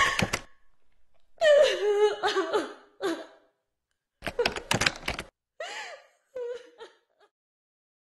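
A person's voice in several short bursts without clear words, separated by pauses and growing fainter.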